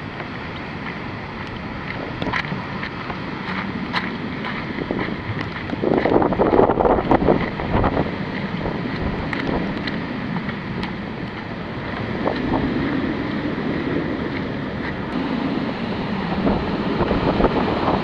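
Typhoon wind gusting hard against the microphone, a rushing roar with the strongest gust about six seconds in and another swell near the middle, with scattered ticks of rain striking the camera.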